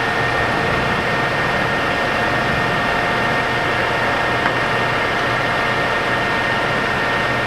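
Mori Seiki MS850G engine lathe running under power: a steady hum with a high gear whine from the headstock, with one faint tick about four and a half seconds in.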